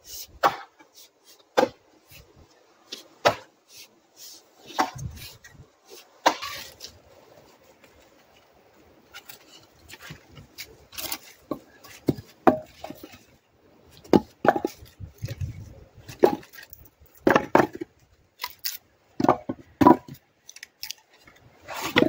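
Splitting axe chopping upright birch rounds: a series of sharp, irregularly spaced knocks of the blade into wood, with split pieces clattering together, and a quieter spell near the middle.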